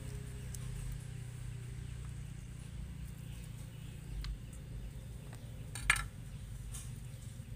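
A few light clicks and one sharper clink, about six seconds in, of hands, knife and lime against a stainless steel bowl of cut fish, over a steady low hum.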